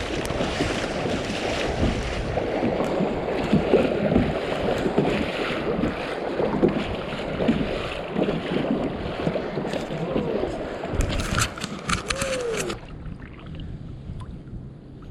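Rushing whitewater splashing around a kayak running rapids, with a quick clatter of knocks near the end; the rush cuts off suddenly about thirteen seconds in, leaving a much quieter flow.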